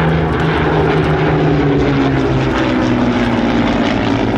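Propeller aircraft flying past, its engine drone loud and steady, with one tone sliding gradually lower in pitch as it goes by.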